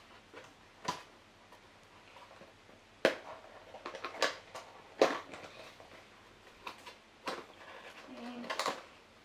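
Small plastic toy packaging being handled and opened by hand: a string of sharp clicks and crackles a second or so apart, with light rustling between.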